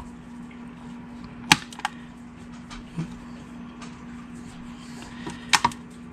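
A few sharp clicks and knocks as a heavy custard apple is handled on and off a digital kitchen scale's metal weighing platform. The two loudest come about one and a half seconds in and near the end, over a steady low hum.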